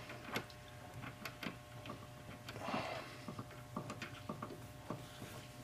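Faint, irregular light metallic clicks and taps as small tools and parts are handled on a clock-plate rebushing machine, with a short rustle partway through over a faint steady hum.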